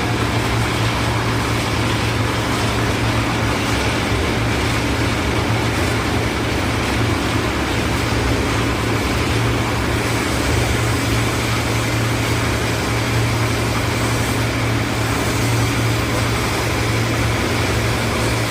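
Concrete mixer's engine running steadily, a constant low drone that does not change.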